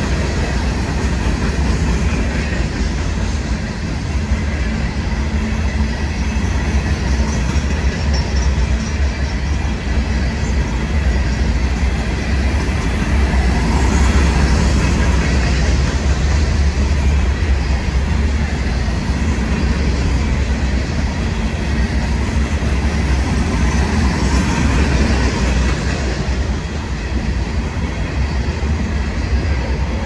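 CSX freight train's open-top hopper cars rolling past on the rails: a steady, continuous rumble of wheels on track, heaviest in the deep low end.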